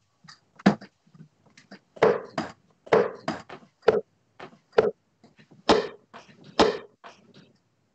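A string of separate knocks and thuds as darts hit bristle dartboards and are pulled out, the two sharpest near the end.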